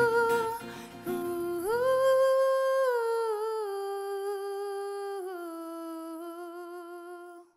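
A woman's voice sings a long wordless held note with a slight vibrato, stepping down in pitch twice; the acoustic guitar accompaniment underneath stops about two seconds in. The sound cuts off suddenly at the end.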